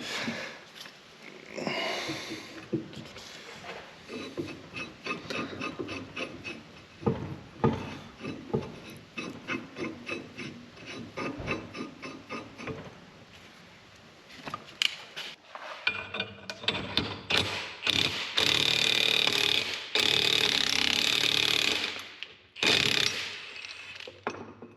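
Hand ratchet clicking in a steady run of small clicks, then about two-thirds in an impact wrench runs loud and steady for several seconds and again briefly near the end, pressing the caps out of a worn front-axle U-joint.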